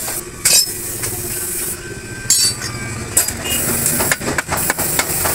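Metal tools and parts clinking and knocking against a truck differential's steel housing and pinion flange during reassembly: a sharp knock about half a second in, a ringing metallic clink a little after two seconds, then a quick run of knocks near the end.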